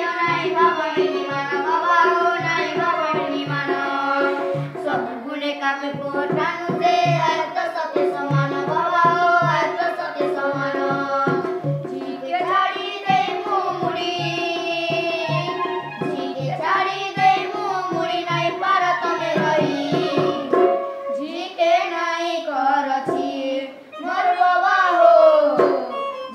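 Children singing a song to electronic keyboard accompaniment, with a hand drum keeping a steady beat. The drum drops out about three quarters of the way through while the singing and keyboard go on.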